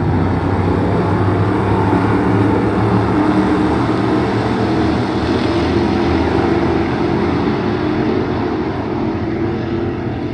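A pack of dirt-track stock cars racing around the oval, many engines running at once in a dense, continuous drone that swells as the pack comes past and eases a little near the end.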